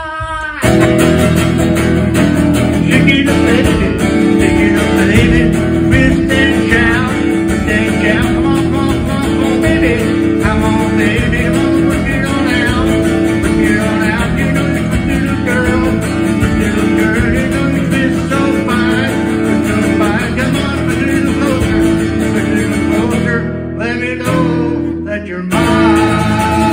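Acoustic guitar strummed steadily with a man singing along. A held note ends right at the start, the playing comes in about a second in, and it thins out briefly near the end before the full strumming comes back.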